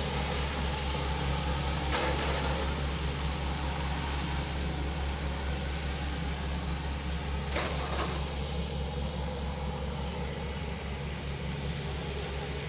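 Single-engine turboprop of a Cessna Grand Caravan running at low, idle-like power while the plane taxis, a steady even drone with a high hiss. Two brief knocks stand out, about two seconds in and again about halfway through.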